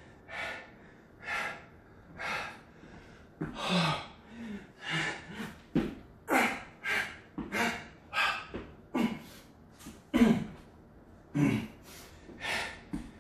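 A man breathing hard and fast through burpees, short loud breaths coming about one to two a second, a few exhales voiced as low grunts. One sharp thump about six seconds in.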